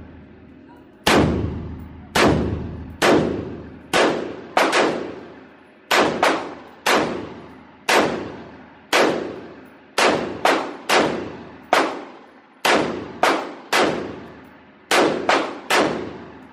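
Semi-automatic firearm fired about twenty times in an unhurried string, some shots in quick pairs. Each shot is a sharp crack with a long echoing tail off the walls of an indoor range.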